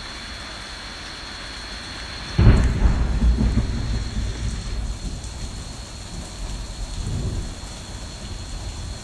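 Rain falling steadily during a thunderstorm. About two and a half seconds in, a sudden loud clap of thunder breaks in and rumbles on for several seconds, swelling again briefly near the end.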